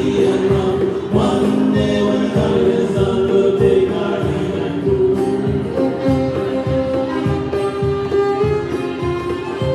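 Live acoustic band playing a sea shanty: fiddle, strummed acoustic guitar and a hand drum keeping a steady beat, with voices singing along.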